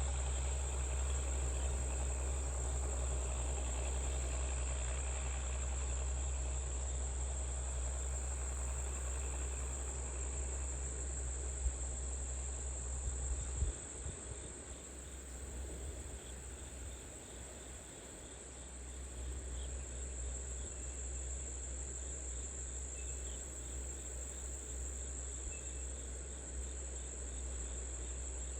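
A steady, high-pitched chorus of insects over the low rumble of an idling tractor engine. The rumble drops away suddenly about halfway through and then comes back more faintly.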